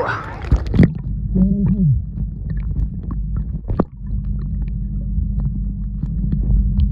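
Sound picked up by a camera under the sea surface: a muffled low rumble with a steady low hum and scattered clicks. There is a sharp splash-like knock as it goes under, just under a second in, and a brief muffled voice-like tone a little later.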